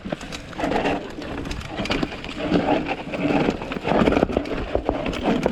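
Downhill mountain bike rolling fast over rough dirt and rock: tyre noise that swells and fades, with many quick clatters and knocks from the bike rattling over the bumps.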